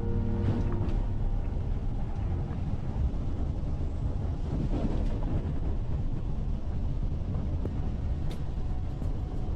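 Car driving at a steady speed: a low, even rumble of road and wind noise. A few held music notes die away about a second in.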